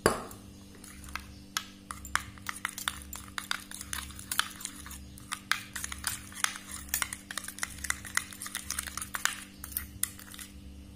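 Steel spoon stirring a thick paste of fuller's earth, turmeric and curd in a small steel bowl: quick, irregular metal clinks and scrapes against the bowl. A sharp clink right at the start is the loudest, and a low steady hum sits underneath.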